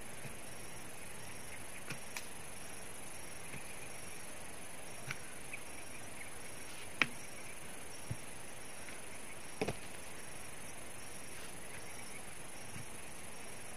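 Hand tool chopping and striking at a tree stump's roots in the soil during land clearing: a few scattered, irregular blows, the sharpest about seven seconds in and a double knock near ten seconds.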